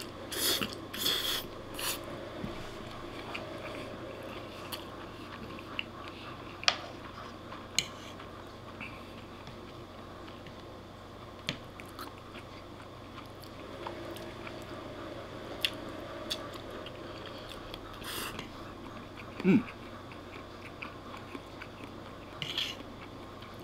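A person eating spaghetti: slurping noodles in short bursts at the start and again later, chewing in between, with scattered light clicks of a metal fork against a wooden plate.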